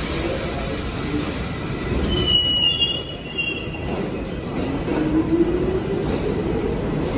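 R46 subway train moving along the platform with a steady rumble. There is a brief high wheel squeal between about two and a half and three and a half seconds in, then a motor whine that rises in pitch as the train gathers speed.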